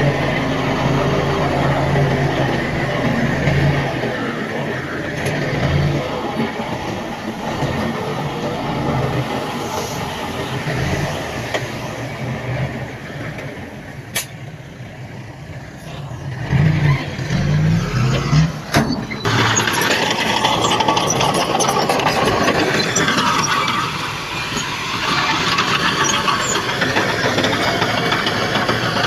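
Diesel engines of heavy earthmoving machinery running, with engine surges and a sudden change in the sound about two-thirds of the way in.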